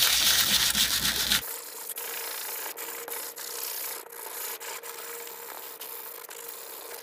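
Emery-board nail file rubbed briskly back and forth along the edge of thin pizza-box cardboard, sanding it smooth. The scraping is loudest for about the first second and a half, then goes on as softer rubbing and handling of the cardboard.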